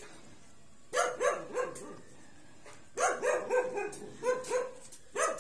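A dog barking in several short clusters of barks.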